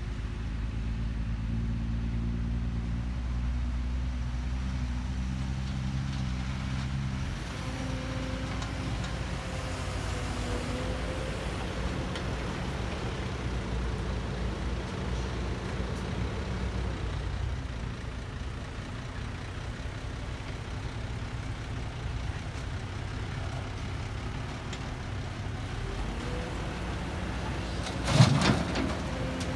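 Kobelco SK200 hydraulic excavator's diesel engine running under load as it digs and swings, with a dump truck's engine running alongside. About 28 seconds in, a loud crash as the bucket drops its load of soil and rocks into the truck's steel bed.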